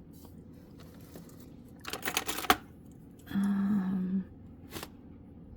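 Silver jewelry being handled on a tray: a short rattle of clicking metal pieces about two seconds in, then a brief steady low sound, and a single click near the end.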